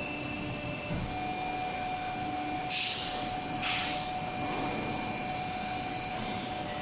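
Steady hum of running workshop machinery, with two short hisses about three and four seconds in.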